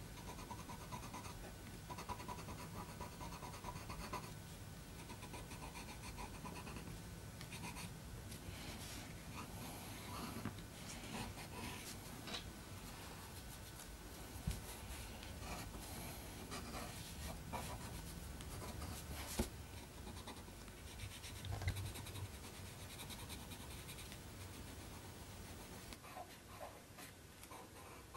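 Faint scratching of a pen on paper in short, irregular strokes, with an occasional small knock.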